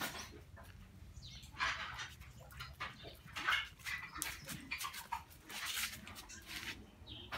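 Short sounds from a small puppy, coming several times with quieter gaps between.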